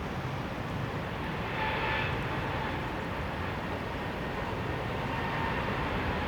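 EP20 electric locomotive with a passenger train approaching: a steady rumble with a thin high electrical whine that comes in about a second and a half in.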